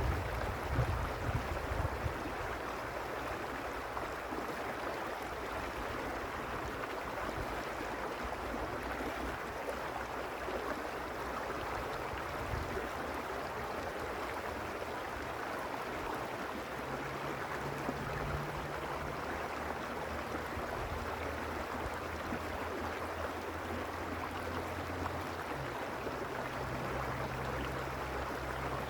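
Creek water flowing steadily: a continuous even rushing. A few low thumps come in the first two seconds, and a faint low hum sits under the water twice in the second half.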